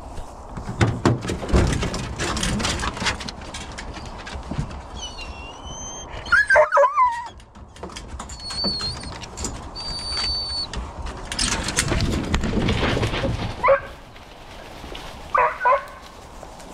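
Deer hounds penned in a metal truck dog box whining and yelping in excitement, over rattling and knocking from the box. A few sharp yelps come near the end as the dogs are turned loose.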